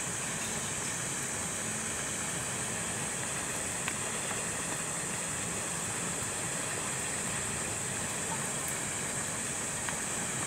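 Steady outdoor background hiss, high and even, with a faint click about four seconds in.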